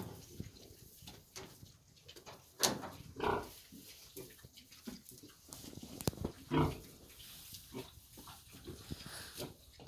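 Piglets, nearly a month old, grunting now and then. Two sharp clicks or knocks come about two and a half and six seconds in.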